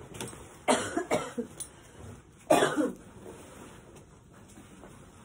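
A woman coughing: a quick run of about three coughs around a second in, then one more about two and a half seconds in.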